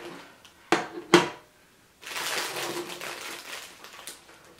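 Two sharp knocks of objects set down on a table about a second in, then about two seconds of plastic packaging crinkling as it is handled.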